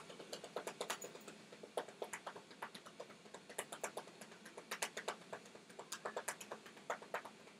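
A hand patting a cat's raised rump in quick, uneven slaps, several a second.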